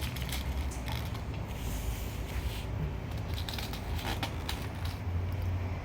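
Light scattered clicks and rustling of hands handling small slime-making supplies, over a steady low hum.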